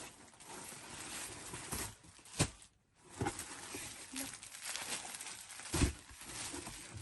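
Clothing and its plastic packaging rustling and crinkling as garments are handled, with a few sharp clicks; the sound cuts out completely for a moment about three seconds in.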